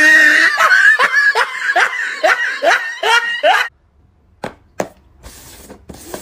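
A person laughing in a quick run of about nine rising 'ha's that cuts off abruptly a little past the middle. A few light taps follow, paper cups being set down on a table.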